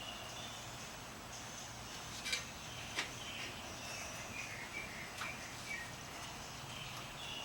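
Faint outdoor background of birds and insects chirping, with a few light clicks of handled parts about two and three seconds in and again around five seconds.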